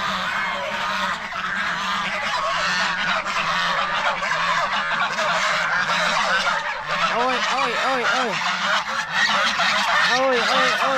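A flock of geese honking continuously, a dense overlapping chorus, with a run of loud, rapidly repeated honks from about seven seconds in.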